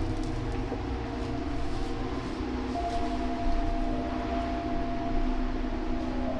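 Steady droning hum: a low rumble under a layer of hiss, with several held tones above it. A higher tone comes in about three seconds in.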